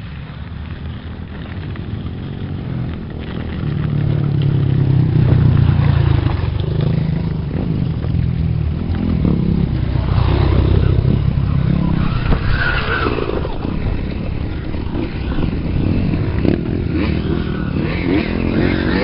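Dirt bike engines running close by on the trail, mixed with low wind rumble on the microphone of a moving mountain bike. It gets louder about four seconds in.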